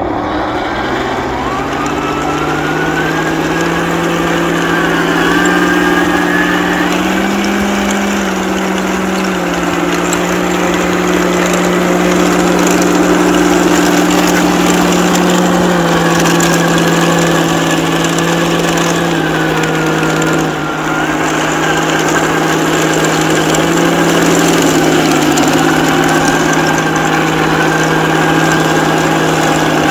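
Heng Long 1/16 Tiger 1 RC tank driving, its built-in sound unit playing a simulated tank engine that steps up and down in pitch with the throttle, over a thin whine from the drive that rises and falls with speed.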